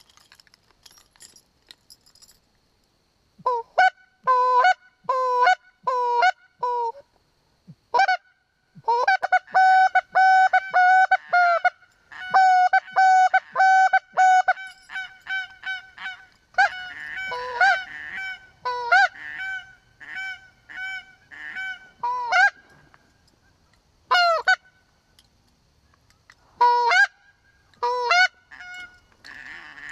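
Short-reed goose call blown in loud, close strings of two-note honks and rapid clucks, in bursts with short breaks, imitating Canada geese to draw in geese flying nearby. It starts a few seconds in.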